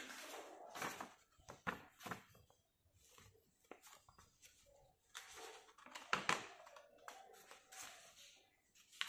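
Paper assembly booklet rustling as it is handled and its pages are turned, in irregular bursts with a few sharp clicks, loudest about six seconds in.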